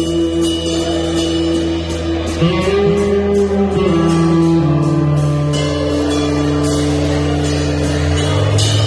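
A live band playing loud music led by guitar, with held notes that change every second or two over a steady, evenly spaced beat.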